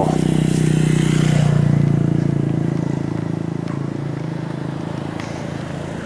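A motorcycle riding past at low speed. Its engine is loudest in the first couple of seconds, then fades as it moves away.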